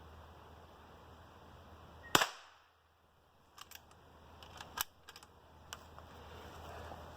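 Henry H001 lever-action .22 rifle: one loud sharp crack about two seconds in, followed by a handful of lighter metallic clicks from the action.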